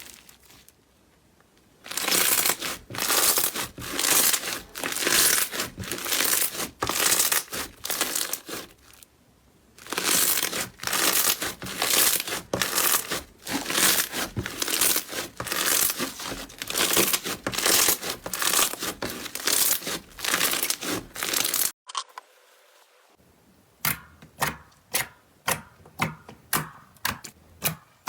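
Slime being kneaded and pressed by hand: rhythmic crackling, crinkly squishes about two a second. About twenty-two seconds in it cuts to another clip of shorter, sharper clicking pops.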